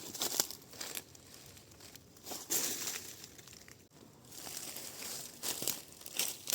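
Dry leaf litter and soil rustling and crackling in irregular bursts, with a few sharp clicks, as ground is worked while digging up bamboo shoots.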